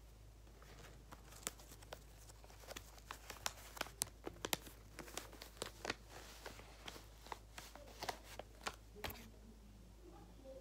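Crinkling and crackling of paper craft material being handled and crumpled while making a paper squishy: a rapid, irregular run of small sharp crackles that stops about a second before the end.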